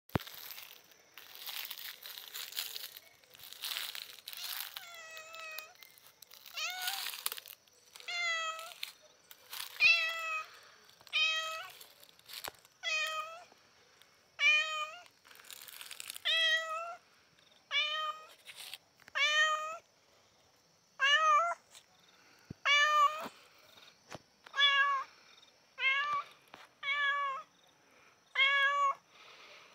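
Domestic cat meowing over and over, each meow a short call that rises and falls in pitch, about one every second and a half. The first few seconds hold only a rustling noise before the meows begin.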